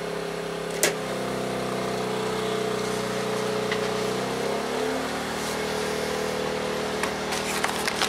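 Wen 56200i inverter generator engine running under a microwave's load, with a click about a second in as a 1500 W portable heater is switched on; over the next few seconds the engine note shifts and climbs as it takes on the extra load, pushing it toward overload.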